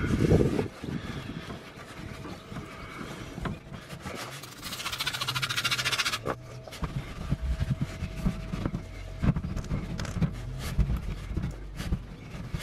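Cloth rubbing and wiping against the car's plastic undertray and oil pan around the drain plug, with small knocks. About five seconds in, a hissing spray of cleaner lasts about a second and a half, then the wiping resumes.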